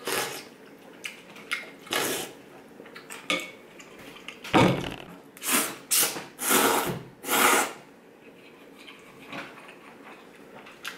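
A person slurping ramen noodles and broth: short slurps near the start and at about two seconds, then a run of loud slurps between about four and a half and eight seconds, with a few faint clicks in between.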